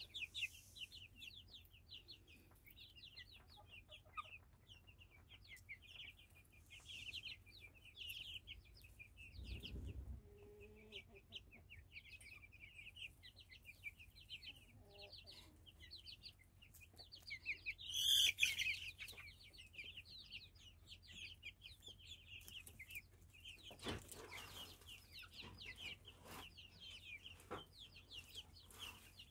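Small flock of young free-range chickens: faint, continuous high chirping and clucking, with one louder call about 18 seconds in and a soft low thump about 10 seconds in.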